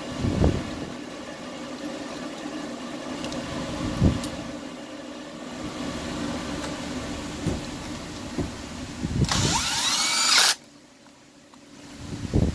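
A few knocks of tools and metal parts being handled over a steady mechanical hum. Near the end a loud whine rises in pitch for about a second, then cuts off suddenly.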